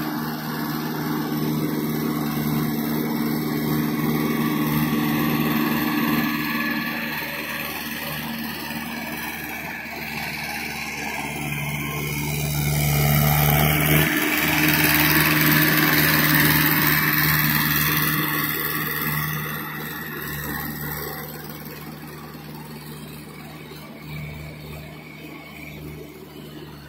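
Mahindra 475 DI tractor's four-cylinder diesel engine running steadily under load while its cage wheels churn through a flooded paddy, with mud and water splashing. It grows louder as the tractor passes close about halfway through, then fades as it moves away.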